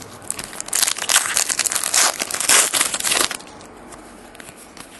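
Foil wrapper of a trading-card pack crinkling loudly as hands work it, for about two and a half seconds, then stopping; quieter rustling of cards follows.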